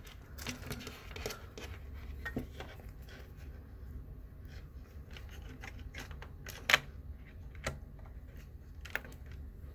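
Handling noise while a keyboard cable is being plugged in: scattered small clicks and rustles, with one sharp click about two-thirds of the way through.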